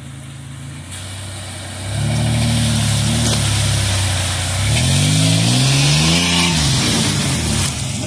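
Lifted pickup truck's engine revving as the truck drives through a muddy water hole, with water and mud splashing around the tyres. The engine gets louder about two seconds in, its pitch rises and falls a couple of times past the middle, and it settles back near the end as the splashing stops.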